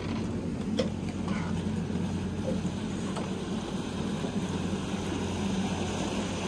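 Water taxi's engine running with a steady low drone, along with the hiss of its propeller churning the water. A few faint knocks, footsteps on the dock, come through.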